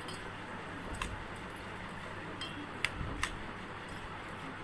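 Metal spoon stirring chopped raw mango with pickle masala in a stainless steel bowl: soft scraping with a few sharp clinks of spoon on steel, the loudest about three seconds in.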